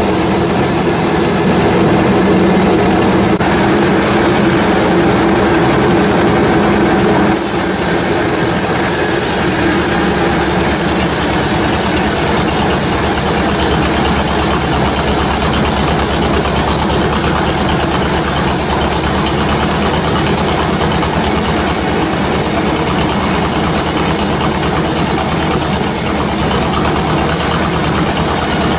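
Sawmill saw machine running steadily and loudly, with a slight change in its sound about seven seconds in.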